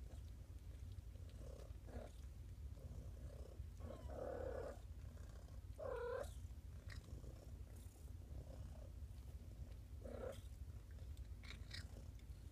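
Domestic cat purring steadily with a low rumble, with a short faint mew about six seconds in.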